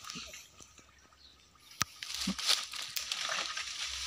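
Footsteps through dense undergrowth: leaves and stems rustling and crunching, with a sharp twig snap a little under two seconds in. Quiet at first, louder from about halfway.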